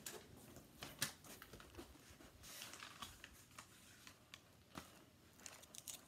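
Near silence with faint rustling and a few small clicks and taps from a handheld camera being carried and handled, the sharpest click about a second in and a small cluster near the end.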